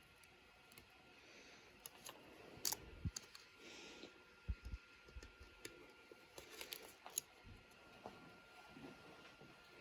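Faint, scattered small clicks and light scraping as a hobby-knife blade and fingers pick support material off a 3D-printed plastic part, with a few soft low knocks.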